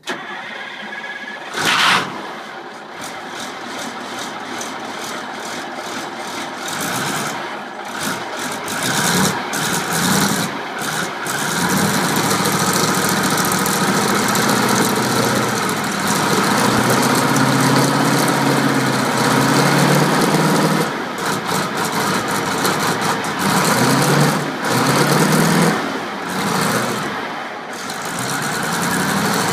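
Cummins V8 diesel of a 1984 Clark wheel loader on a cold start: it comes in abruptly, runs unevenly for several seconds, then settles into steadier running with its speed rising and falling.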